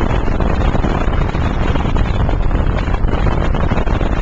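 Loud, steady wind buffeting the microphone, mixed with road noise from a car in motion.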